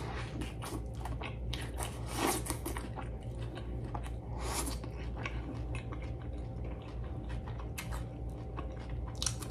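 Close-miked biting into a smash burger and chewing it: many short, irregular mouth clicks and crunches. A steady low hum runs underneath.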